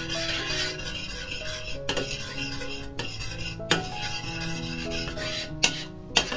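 Metal spoon stirring coconut milk in a stainless steel pot, scraping continuously and clinking sharply against the pot's side about five times. A slow instrumental melody plays underneath.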